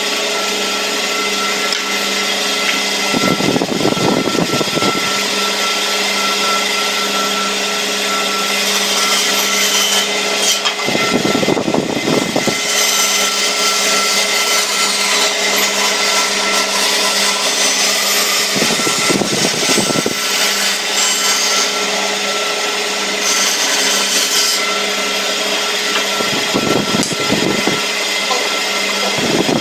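Band saw running steadily with a constant hum while its blade cuts a curved profile in a wooden board, the cutting hiss swelling and easing as the wood is fed. Short low rumbles come four or five times.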